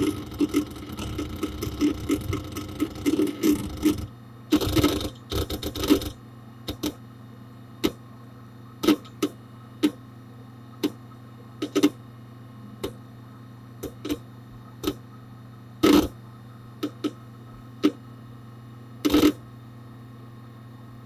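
Hard disk drive inside a Dell Dimension 4700 desktop seeking: a busy run of rapid head clicks and chatter for the first few seconds, a few bursts of activity, then single clicks roughly once a second over a steady hum.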